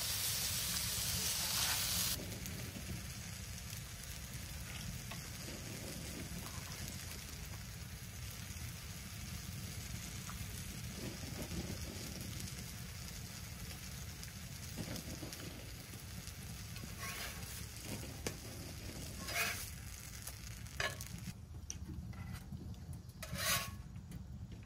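Pancakes sizzling in a frying pan on a wood-burning camp stove: loud for the first two seconds, then fainter and steady. Near the end come a few sharp clicks and scrapes as a metal spatula lifts a pancake out of the pan.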